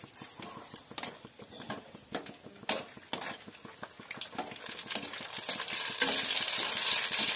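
Gupchup (panipuri) puris deep-frying in hot oil in a kadai, with a wire spider strainer clicking and scraping against the pan. The sizzling gets much louder about five seconds in.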